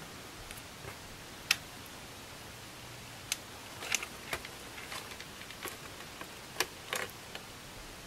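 Faint, irregular small clicks and taps, about a dozen over several seconds, over a low steady hiss: handling noise while the opened scanner is looked over.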